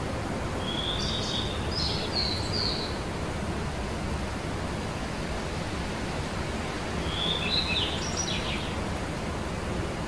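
Small songbirds chirping in two short bursts of high notes, about a second in and again about seven seconds in, over a steady hiss of outdoor background noise.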